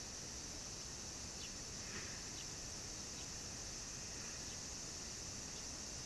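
Quiet outdoor park ambience: a steady high hiss with a few faint, short chirps scattered through it.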